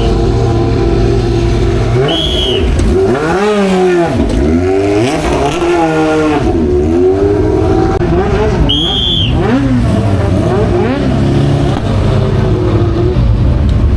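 Classic racing car engines running hard past the track, their pitch climbing and dropping again and again through acceleration, gear changes and braking. Short high squeals come about two and nine seconds in.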